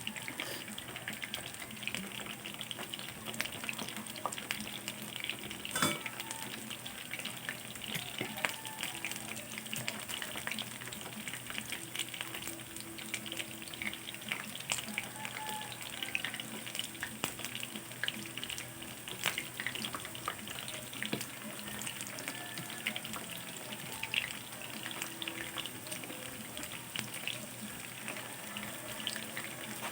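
Eggplant slices frying in hot oil in a pan: a steady sizzle full of small crackles and oil spits, with one sharper pop about six seconds in.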